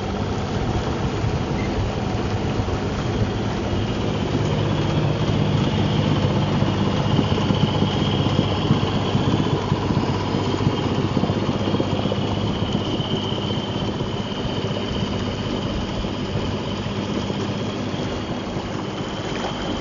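A boat's engine running steadily at a constant speed.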